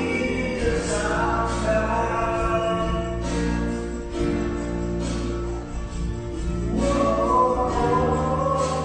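Music with singing voices over a steady bass line.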